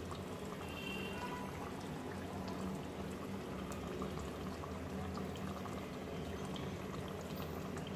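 A pot of thick beef kosha curry simmering, with a steady low bubbling and faint popping from the sauce, over a low steady hum.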